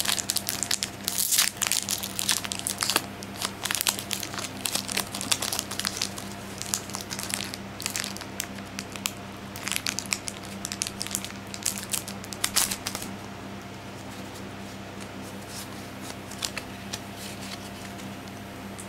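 Foil Pokémon booster pack wrapper being crinkled and torn open, with dense crackling for about the first thirteen seconds, then only a few soft rustles.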